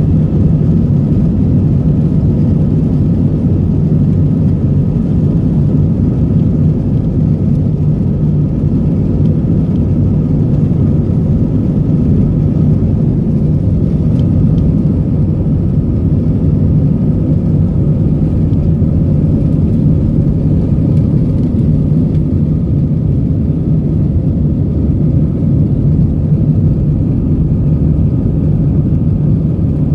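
Airbus A319 jet engines at takeoff thrust, heard from inside the cabin during the takeoff roll and climb-out: a loud, steady rumble with a constant hum.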